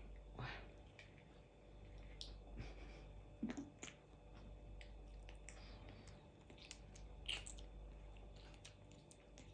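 Baby hamadryas baboon faintly chewing and biting into juicy cherry tomatoes: soft wet mouth sounds and small clicks, with a few slightly louder smacks scattered through.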